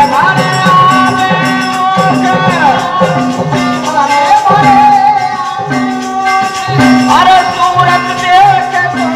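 Live Birha folk music: harmonium and dholak drum with jingling brass hand cymbals keeping a steady beat, under long held melodic notes that slide between pitches.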